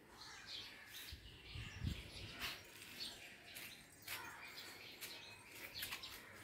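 Faint birds chirping now and then in the background, with a soft low thump about two seconds in.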